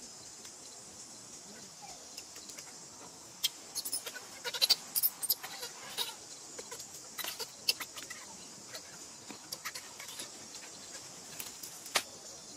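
Newborn baby monkey crying in short, high squeaks, most of them bunched together in the middle few seconds, over a steady high hiss.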